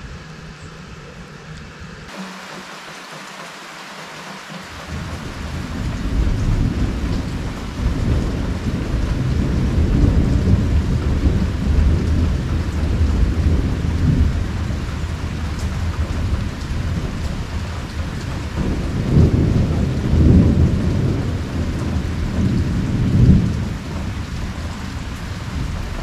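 Heavy rain pouring steadily, with thunder rumbling low from about five seconds in and swelling in several louder rolls near the end.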